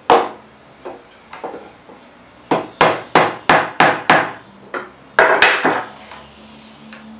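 Hammer striking a block of wood to tap a 4-inch PVC pipe down into flex hose and seat it: a few single knocks, then a quick run of about six strikes, then three or four more.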